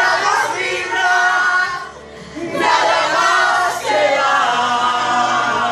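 A group of men and women singing loudly together, one man into a microphone, with a short break about two seconds in.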